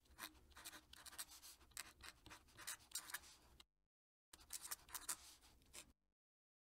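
Faint scratching of a fountain pen nib on paper as cursive is written in quick strokes. It comes in two runs, broken by a pause of about half a second just after the middle.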